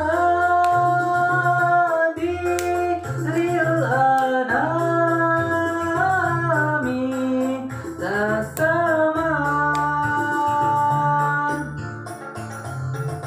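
A sholawat (Islamic devotional song) playing: a singing voice holds long, sliding notes in Arabic over an instrumental backing with a steady low bass line.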